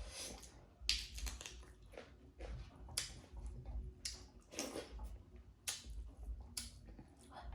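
Close-miked mouth sounds of chewing a mouthful of pork and rice: irregular crunches and wet smacks, roughly one or two a second.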